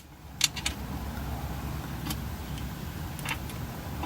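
A few light metallic clicks and taps of bolts, nuts and hand tools being handled while fastening the windage tray, over a low steady hum.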